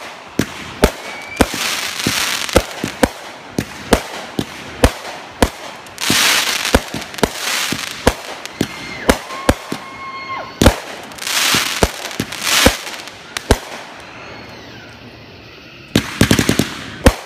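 Consumer fireworks and firecrackers going off: an irregular run of many sharp bangs, with stretches of dense crackling between them and a rapid string of pops near the end.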